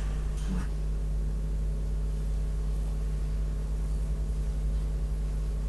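Steady low hum, with a faint knock about half a second in.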